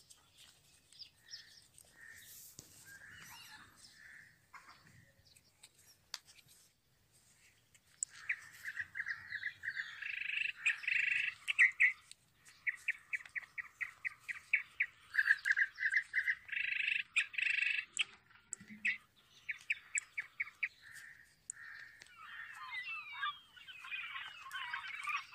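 Birds chirping in runs of rapid repeated notes, faint at first and much louder from about a third of the way in, with a denser jumble of calls near the end. Faint clicks and rustles of paper being creased are heard between the calls.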